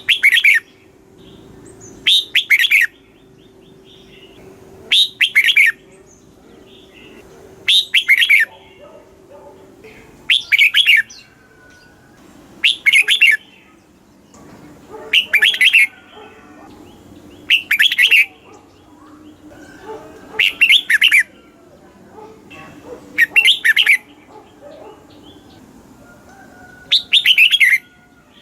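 Red-whiskered bulbul singing: short loud warbled song phrases, each under a second, repeated about every two to three seconds, with faint chirping between them.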